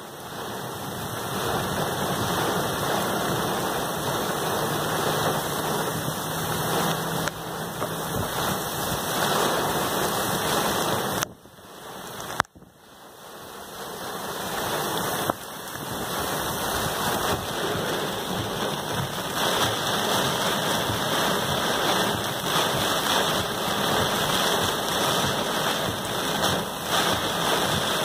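Heavy rain pouring down in a storm, a steady dense hiss of water. About eleven seconds in, the sound cuts out for about a second, then the downpour noise builds back up.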